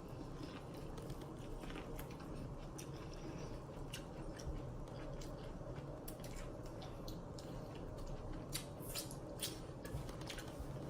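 Quiet close-up eating sounds: chewing and mouth smacking, with scattered sharp wet clicks at irregular intervals.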